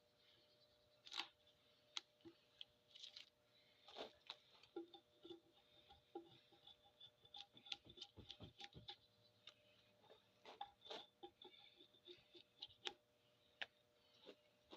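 Light, irregular taps and scraping clicks of a hand tool working bark off a cedar log, a few a second and unevenly spaced.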